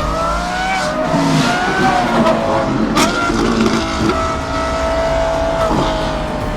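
Loud car engine revving up and down, with a sharp crack about three seconds in, then held at steady high revs for a couple of seconds before dropping.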